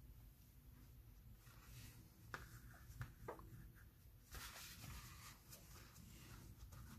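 Near silence with faint rustling and a few soft taps: a piece being laid onto a freshly glued journal page and smoothed down by hand.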